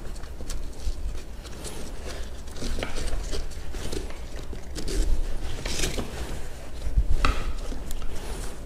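Five-point harness webbing on a high chair being pulled and slid through its plastic strap adjuster, with scattered small plastic clicks and rustling of the strap and seat cover.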